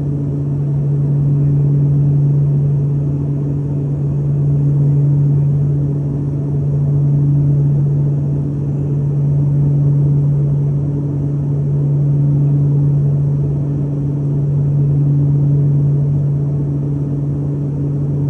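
Turboprop aircraft's propeller and engine drone heard from inside the cabin: a loud, steady low hum that swells and fades about every two and a half seconds.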